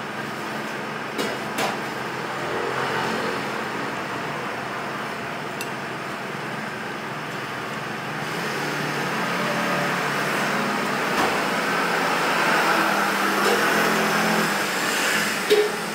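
Steady road traffic noise that swells for several seconds in the second half, as if a vehicle is passing. A few light clicks of chopsticks against a bowl sound over it.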